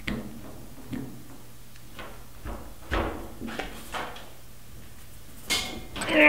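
Irregular light knocks and taps as an evaporative vent valve is pressed and tapped by hand into a lubricated rubber grommet in the top of a fuel tank.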